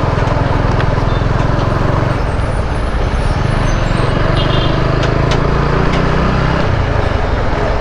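TVS Apache RTR 200's single-cylinder engine running under way at highway speed, with wind rush over the helmet microphone. The engine note shifts about two seconds in and again near the end.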